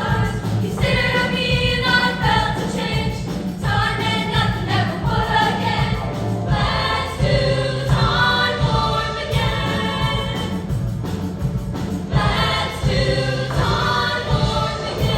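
A junior high girls' choir singing a held, sustained choral passage.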